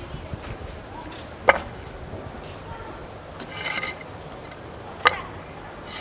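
Two sharp knocks about three and a half seconds apart, with a short scrape between them, as a wooden straightedge is set against and across a concrete-block wall.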